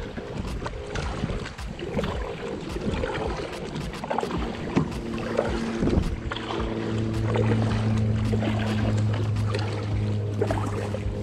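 Wind and water noise around a kayak, with scattered knocks and clicks. About five seconds in, a steady low hum of several held tones joins in and continues.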